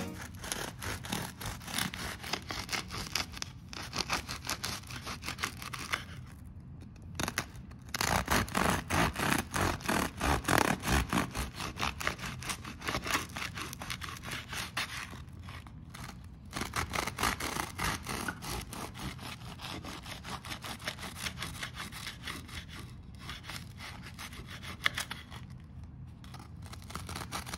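A knife sawing back and forth through crusty baguette-style rolls on a wooden cutting board, in rapid scraping strokes with a few short pauses between cuts; loudest about eight to eleven seconds in.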